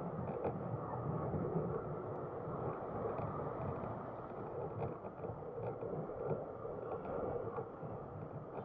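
A small motorcycle on the move, heard through an action camera's microphone: a steady, muffled rush of engine, wind and road noise.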